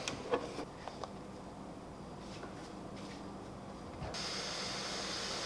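A few faint knocks of plastic being handled, then about four seconds in a kitchen tap is turned on and runs steadily, a quiet even hiss of water into a plastic pitcher.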